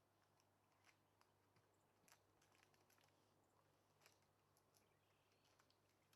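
Near silence: a faint low hum with a few scattered faint ticks.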